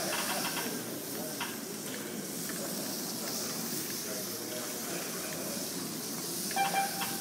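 Slot cars racing on a multi-lane routed wooden track: a steady high hiss from their small electric motors and tyres, with a few light clicks.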